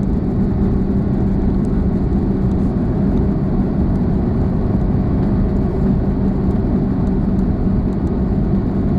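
Airbus A340-600's four Rolls-Royce Trent 500 engines heard from inside the economy cabin: a steady rumble of engine and air noise with a constant low hum.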